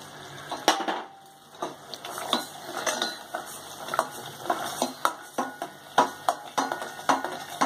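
Perforated steel skimmer clinking and scraping against a steel pot while stirring sugar syrup: irregular sharp metallic knocks, some ringing briefly. One knock comes first, then a short lull, then frequent knocks, several a second.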